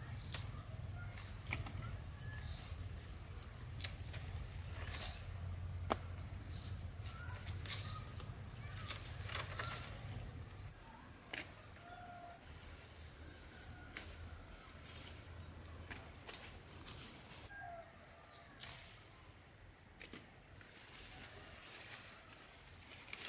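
Insects droning at a steady high pitch, with scattered sharp clicks and a few short bird calls. A low hum lies underneath and fades about two-thirds of the way through.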